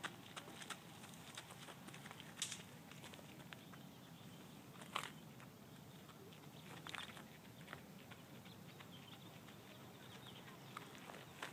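Near silence: faint outdoor background with a few scattered sharp clicks, the strongest about five seconds in.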